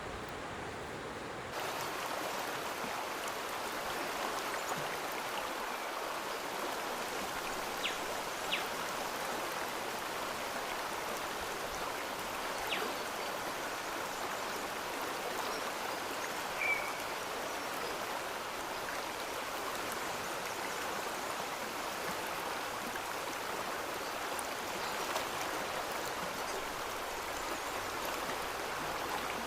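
Stream water running steadily, with a few faint clicks and one short high chirp about two-thirds of the way through.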